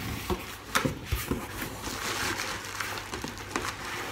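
Cardboard box and plastic packaging being handled: scattered rustling with a handful of light knocks and clicks, over a faint steady low hum.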